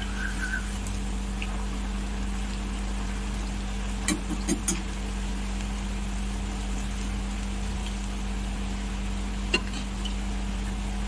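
Hot oil sizzling steadily as potato and pointed gourd finger chips deep-fry in a metal kadai, over a steady low hum. A few sharp clicks about four seconds in and one more near the end, the slotted spoon knocking against the pan.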